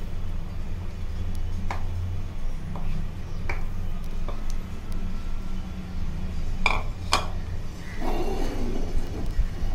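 Wooden spatula knocking and scraping against a plastic bowl and a nonstick kadhai as dry besan flour is tipped into the pan: a few sharp taps spread through, then a short rough scrape near the end, over a steady low hum.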